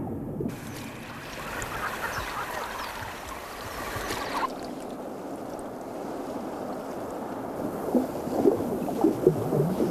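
Water sounds: splashing and lapping, with a cluster of short, sharp splashes near the end.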